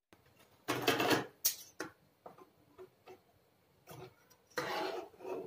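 Fabric being pulled and rustled at a sewing machine in a few short bursts, then large tailor's scissors cutting through the cloth near the end.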